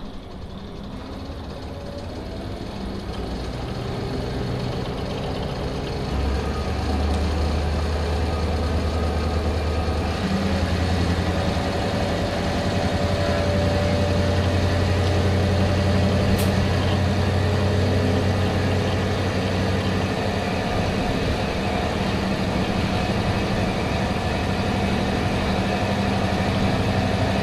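Kanto Railway KiHa 005 diesel railcar running with its DMH17C inline-eight diesel engine under power. The engine and running noise grow louder over the first few seconds, step up about six seconds in, then run steady.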